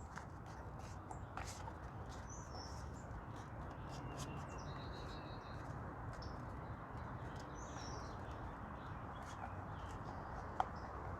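Birds chirping faintly in short scattered calls over a steady low background hum, with a few light clicks and taps.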